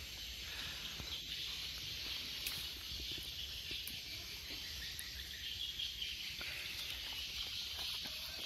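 Steady high-pitched chorus of forest insects such as crickets.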